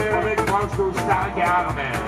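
Live acoustic band playing a song: acoustic guitar, double bass, cajón and hollow-body electric guitar, with a steady beat and a man singing.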